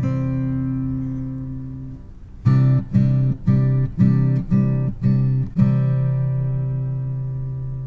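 Background music of a strummed acoustic guitar: a chord rings and fades, then a run of strums at about two a second, then a last chord is held and fades.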